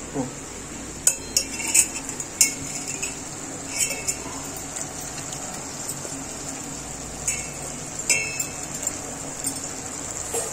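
Steel spatula clinking and scraping against a steel kadai as raw prawns are stirred into a thick tomato gravy. Sharp metal clinks come in a cluster over the first four seconds and again twice around seven and eight seconds in.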